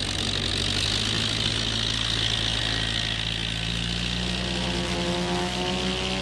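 Tiger Moth biplane's propeller engine running under a steady rushing hiss. From about four seconds in, a rising whine joins as the engine revs up.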